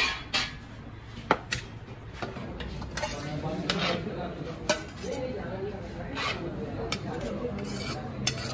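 Steel plates and a serving spoon clinking and knocking against a large metal pot and lid while biryani is scooped and served. About ten separate sharp clinks, irregularly spaced.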